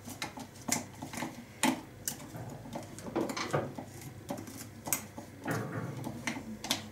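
A metal fork clinking and scraping against a dish in irregular taps as a soft, soaked fruit mixture is mashed.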